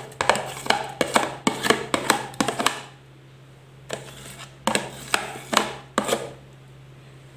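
Repeated hard knocks on an upturned plastic tub as partly frozen mango ice-cream mix is shaken and tapped out of it into a plastic mixer jar: about four knocks a second for three seconds, then a pause and three more knocks.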